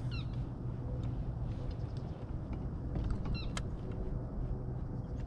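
A bird gives a short, bending call twice, a few seconds apart, over a steady low rumble. There is a sharp click about three and a half seconds in.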